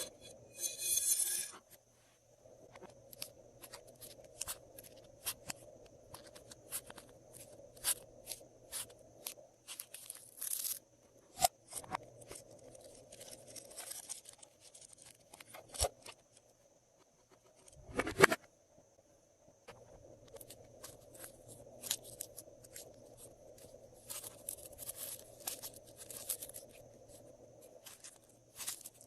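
Glossy slime being squished and worked by hand: irregular small clicks and pops, with a few louder pops now and then.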